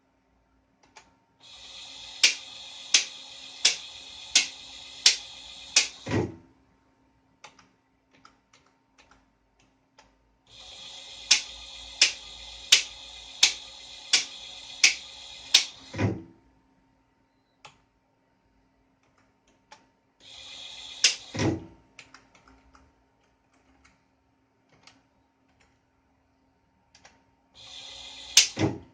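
Automated lathe toolchanger turret motor whirring through four tool changes, two long and two short. During each run the pawls click about every 0.7 s as the turret indexes past tool positions, and each run ends in a heavier clunk as the turret locks.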